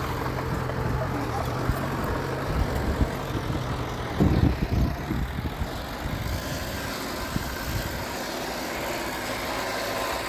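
Diesel engine of earth-moving machinery running steadily, with a run of loud low thuds about four seconds in, after which the engine sound drops and roughens.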